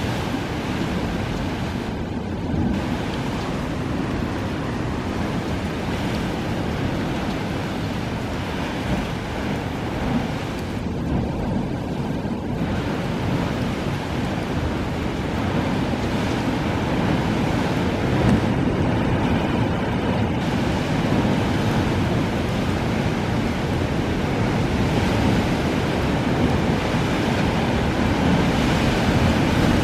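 Sea surf surging and churning through a narrow rock surge channel: a steady, heavy rush of white water that grows a little louder toward the end.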